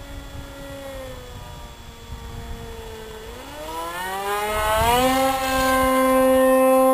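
Homemade RC plane's motor and propeller droning; the pitch rises steeply and the sound grows much louder about three and a half seconds in as the plane comes low and close, then holds a steady, higher drone.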